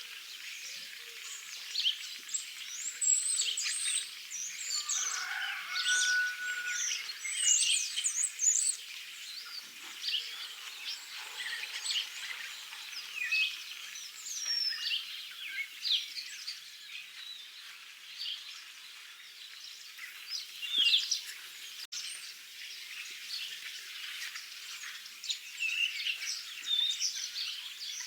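Many small songbirds chirping and singing together in a steady, busy chorus, with a brief clear whistled note about five seconds in.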